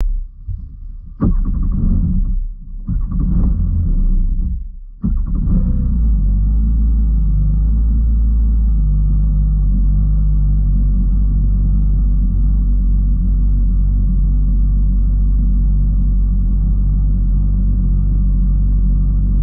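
Supercharged four-cylinder engine of a Kawasaki Ultra 310LX jet ski running under way: it comes in a few short surges over the first five seconds or so, then holds a steady, loud, low rumble at speed.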